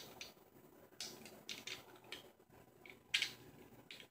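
A set of dentures clicking and scraping against each other as they are handled and fitted together: a handful of short, faint clicks, the loudest about three seconds in.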